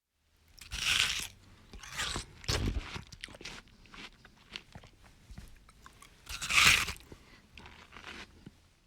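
A person biting into and chewing watermelon: two loud crunchy bites, about a second in and near seven seconds, with quieter chewing crunches between.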